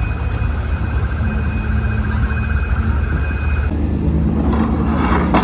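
Steady low rumble of vehicle engines, with a thin high fluttering tone over it that stops about three-quarters of the way through.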